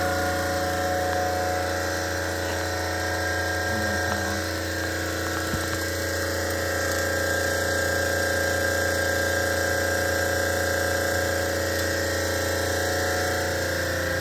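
Copeland 9RS refrigeration compressor running with a steady hum, newly converted from MP39 to R134a refrigerant.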